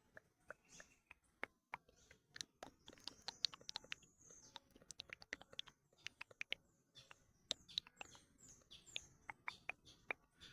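Close-up ASMR mouth sounds: a dense, irregular run of sharp tongue clicks and mouth smacks, with a few short high chirping squeaks among them.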